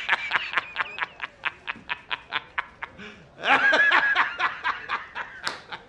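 A man laughing hysterically: a fast string of 'ha' bursts, about five a second, broken about halfway by a long high-pitched wheezing cry, then more rapid 'ha's.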